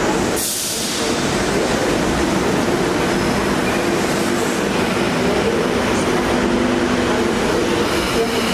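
A train running along the rails: a steady, loud rumble with faint whining tones through it.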